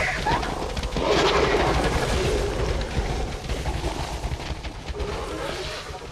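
Designed Utahraptor dinosaur sound effect: harsh, rasping calls over a deep rumble, fading away near the end.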